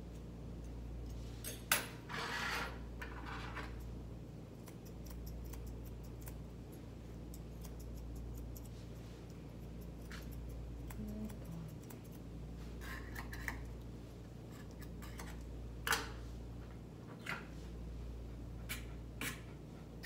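Grooming scissors snipping the beard hair of a West Highland White Terrier: scattered quick snips and clicks, a few sharper ones, over a low steady hum.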